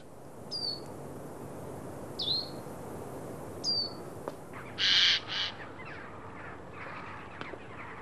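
Male Eurasian jay calling: a loud, harsh double screech about five seconds in, then fainter rasping calls. This is its far-carrying cry, which draws females and keeps rival males away. Three short, thin, falling whistles sound in the first few seconds.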